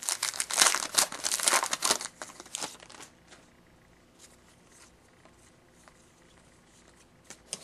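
Wrapper of a 2011-12 Contenders hockey trading-card pack crinkling and tearing as it is ripped open, for about the first three seconds, then only faint handling ticks.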